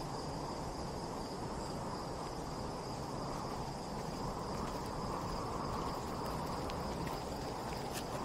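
Steady wind rushing across open desert, with a thin, continuous high-pitched insect trill above it.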